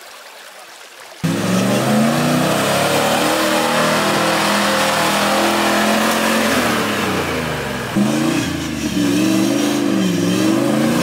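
Land Rover Discovery 1's 3.9-litre engine revving hard, cutting in abruptly about a second in, its pitch rising and falling as the 35-inch mud tyres spin and throw mud while the truck struggles up deep, wet ruts.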